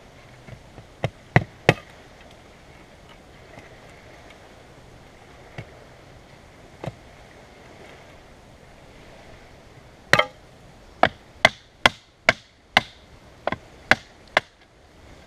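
Sharp knocks of a knife chopping into wood: three strikes about a second in, two more spread out, then a quick run of about ten strikes, roughly two a second, from about ten seconds in.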